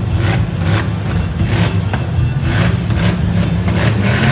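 V8 engines of demolition-derby stock cars running with a steady low rumble.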